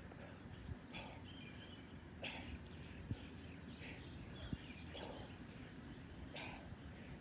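A man's short, forceful exhalations while swinging a kettlebell, one sharp breath with each swing, about every second and a half.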